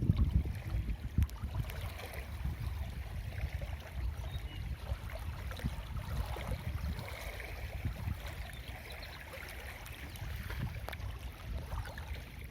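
Water flowing and gurgling without a break, with gusts of wind rumbling on a phone's microphone. The rumble is strongest at the start and eases off in the middle.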